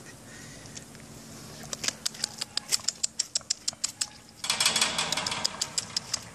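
Four-week-old American pit bull terrier puppies scrabbling about their pen: a run of sharp clicks of claws on the concrete and wire, then about halfway through a burst of scratching and scraping.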